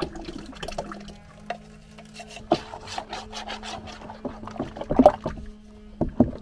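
Wooden stirring stick scraping and knocking around a flexible plastic tub as it mixes thick antifouling paint, in irregular strokes that are loudest about five seconds in.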